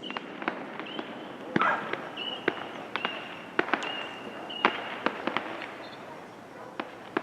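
Fireworks going off across a lake: about fifteen sharp bangs at irregular intervals, the loudest about one and a half and four and a half seconds in.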